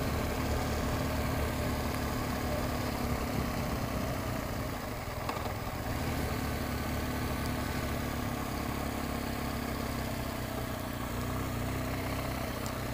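A 2013 BMW R1200GS's boxer-twin engine running steadily at low speed as the motorcycle rolls slowly along.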